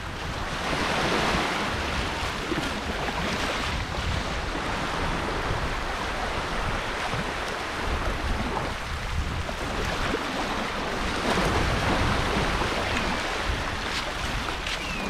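Small waves breaking and washing up on a sandy shore. The surf swells twice, about a second in and again around ten seconds in, over a steady low rumble of wind on the microphone.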